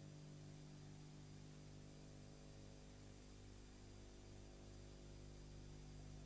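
Near silence: a steady low electrical hum with an even hiss.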